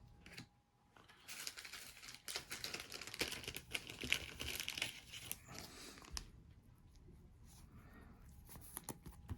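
Crinkling and rustling of plastic and foil as Pokémon trading-card packaging is handled, dense for several seconds and then quieter.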